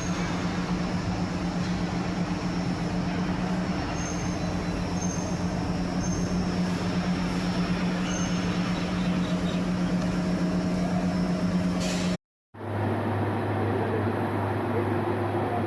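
Steady drone of industrial machinery: a constant low hum over a broad hiss. It cuts off abruptly about twelve seconds in, then comes back as a different steady hum, lower in pitch.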